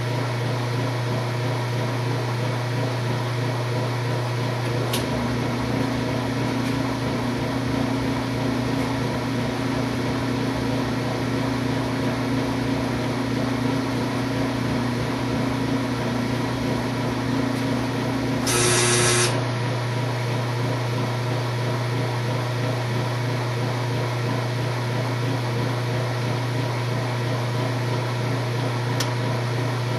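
Washing machine with a fault that stops its spin partway through the spin cycle, humming steadily. About five seconds in a click is followed by a lower drone that runs for about thirteen seconds and ends in a brief loud buzz; another click comes near the end.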